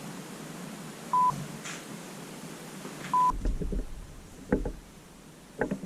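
A short, high electronic beep on one steady pitch, sounding twice about two seconds apart, followed by a few faint knocks and low rumbles.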